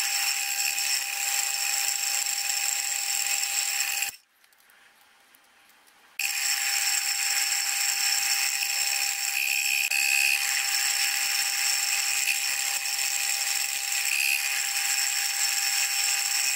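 Milling machine cutting a slot in a metal block with an end mill: a steady machining noise with a high whine, which drops out for about two seconds around four seconds in, then carries on.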